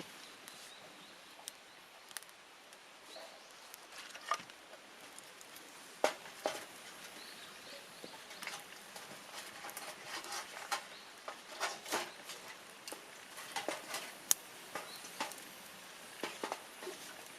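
Wood fire crackling in a Picogrill-style fire pit: irregular pops and snaps, few at first and more frequent in the second half.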